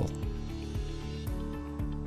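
Background music with held tones and a light, steady beat.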